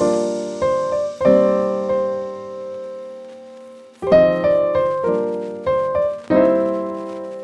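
Piano music: chords struck one after another and left to ring and fade, with a pause of a couple of seconds in the middle.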